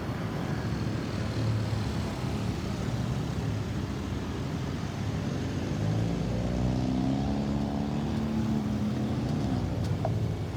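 Road traffic running steadily, with one motor vehicle's engine swelling and fading as it passes during the second half. No siren is heard.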